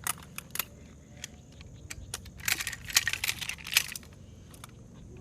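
Metal equipment clinking and rattling in scattered sharp clicks, busiest from about two and a half to four seconds in.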